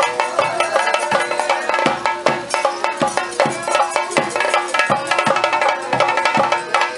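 Theyyam ritual drumming: chenda drums beating fast, dense strokes, with steady ringing tones and a wavering melodic line held over the beat.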